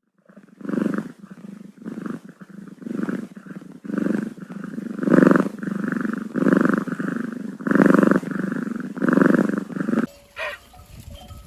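Cat purring, a rapid rumbling that swells and fades with each breath, stopping about ten seconds in.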